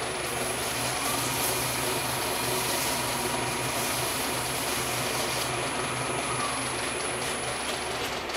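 Wood lathe running steadily with a hum and a thin high whine, while a cloth wipes sanding sealer onto the spinning hackberry workpiece. The whine and hum stop near the end.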